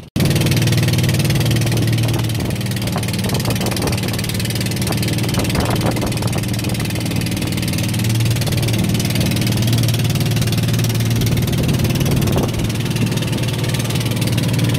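Small boat's long-shaft outboard motor running steadily under way, a constant low hum, with wind and water noise over it.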